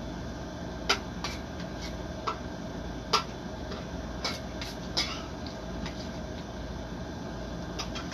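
Eating utensils clinking and scraping against metal plates during a meal: irregular sharp clicks, a few at a time, over a steady room hum.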